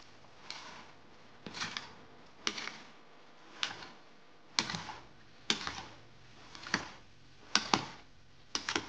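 Metal spoon scraping and clinking against a glass bowl while stirring a creamy potato salad, in regular strokes about once a second.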